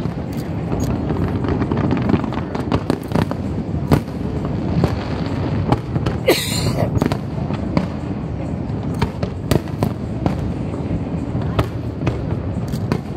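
Aerial fireworks shells bursting in a fast, irregular run of sharp bangs over a steady low rumble. A short burst of high hiss comes about six seconds in.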